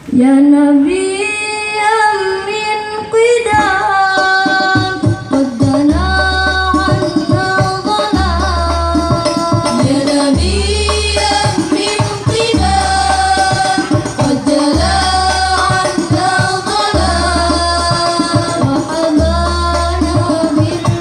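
Group of girls singing sholawat through microphones, with banjari frame drums (terbang) joining about four seconds in and keeping a steady rhythm of deep thuds and sharper strokes.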